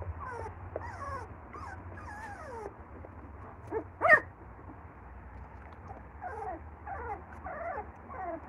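A litter of young puppies, their eyes just opening, whimpering and squeaking. It is a run of short squeals that fall in pitch, with one louder, sharper yelp about four seconds in.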